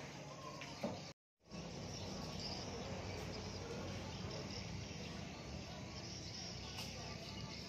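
Outdoor ambience of insects chirring steadily over a low, even rumble, with a short break in the sound about a second in.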